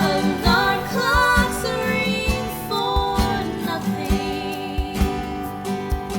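Music: a song with strummed acoustic guitar and a wavering melody line over it during the first half, with no words.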